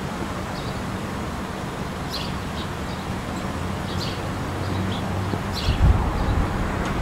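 Škoda Rapid's 1.6 MPI four-cylinder petrol engine running with a steady hum, its pitch settling lower about four and a half seconds in. A few low thumps come near the end.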